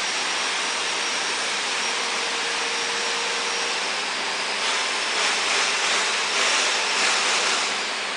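Steady rushing noise of a factory hall, with a uPVC stacking sliding door's panels running along their track; from about halfway a run of swelling rushes as the panels are pushed across.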